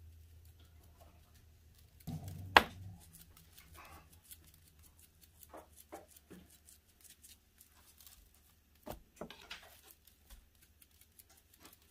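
Hands patting and turning raw, dry-rubbed pork spare ribs on a metal sheet pan: soft scattered pats and taps, with one sharp knock about two and a half seconds in and a smaller one near the end.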